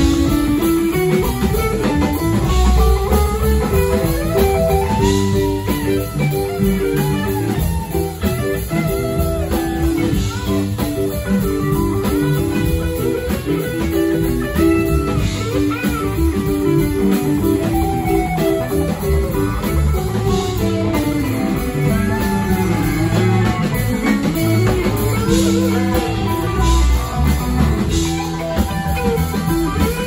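Live band playing an instrumental passage: an electric guitar carries a melodic line with bent notes over keyboard, bass guitar and drum kit.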